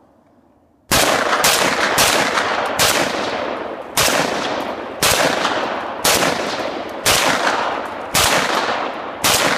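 A .308 semi-automatic rifle firing about eleven shots, each crack followed by a long echo tail. The first shot comes about a second in and the next four follow quickly, about two a second. The rest are spaced about a second apart.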